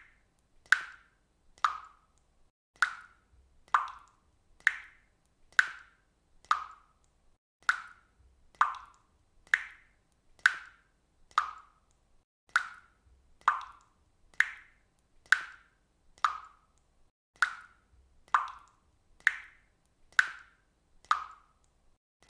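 Water dripping from a faucet: single drops landing in a steady rhythm of about two a second, each a short plink, alternating a louder drop with a softer one.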